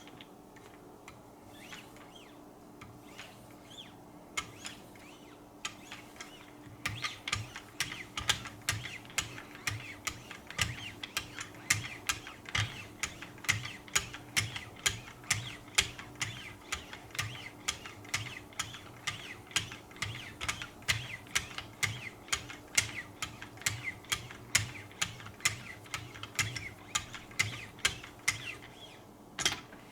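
Knife blade being stroked along the fine 1 and 0.5 micron abrasive paddles of a Wicked Edge guided sharpener for a final mirror polish. After a few faint scattered ticks, quick regular strokes start about seven seconds in, about three a second, and run until near the end.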